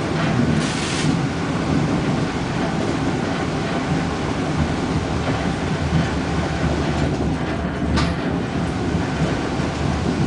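PATH train running, heard from inside the car: a steady rumble of wheels on the rails. A short hiss comes about half a second in, and a single sharp click about eight seconds in.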